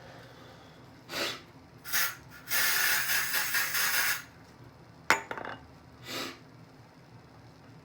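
A person's breaths and sniffs between sneezes in an allergy sneezing fit. About two and a half seconds in comes a loud hissing or rustling noise lasting a second and a half. Near the end there is a sharp click and one more short breath.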